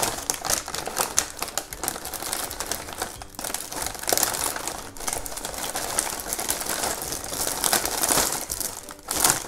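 Plastic snack bag crinkling and rustling as it is opened and rummaged through, with the crackle of a cellophane toy wrapper being pulled out.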